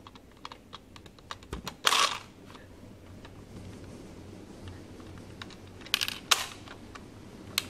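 A toy capsule-vending machine's knob being turned after a coin is put in: a run of small ratcheting clicks, with louder clacks about two seconds in and again around six seconds.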